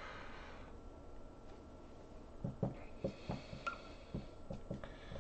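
Dry-erase marker writing on a whiteboard: a faint run of short strokes and taps, about two or three a second, starting about halfway in.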